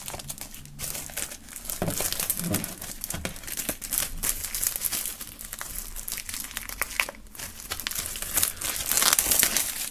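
Plastic shrink-wrap film crinkling and crackling as it is peeled off a 7-inch vinyl single's sleeve and handled, in a continuous irregular crackle.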